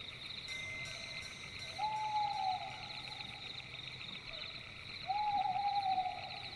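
Steady chorus of night insects, a high pulsing trill. Over it, two long hooting calls, about two seconds and five seconds in, each held steady and then dropping a little at the end.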